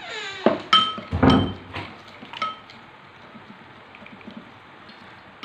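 Corn oil poured from a swing-top glass bottle into a ceramic bowl of marinade, then several ringing clinks of glass and a metal spoon against the bowl, with a heavier knock about a second in; it quietens after two and a half seconds.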